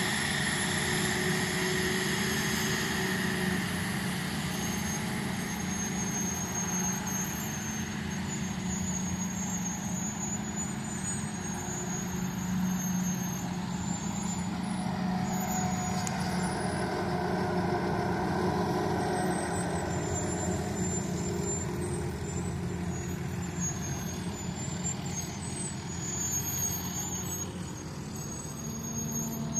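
Heavy farm machinery at work in a corn silage harvest: large engines running steadily, with a constant low hum and faint high whines over it.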